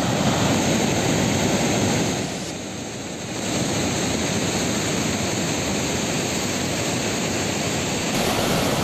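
Steady roar of rushing water, dipping briefly about two and a half seconds in before returning.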